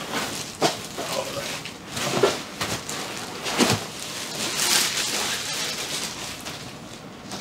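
Thin plastic bag crinkling and rustling as it is pulled off an object and bunched up in the hand, in uneven crackly bursts.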